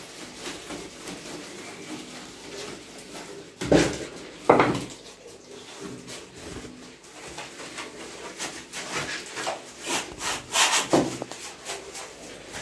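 Sponge scrubbing back and forth over newly laid glazed ceramic wall tiles. There are two loud knocks about four seconds in. Near the end comes a run of quicker, louder strokes.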